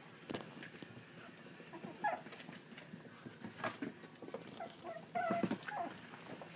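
Yorkshire terrier puppies whining in short high calls, about two seconds in and again in a run near the end, with a few sharp clicks in between.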